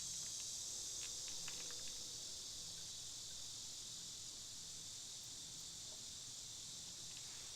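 Faint, steady high-pitched hiss of background ambience, with a few light clicks about one to two seconds in.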